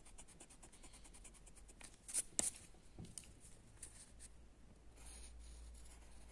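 Handwriting: faint scratching strokes of a pen or marker, with a few sharper ticks around two seconds in.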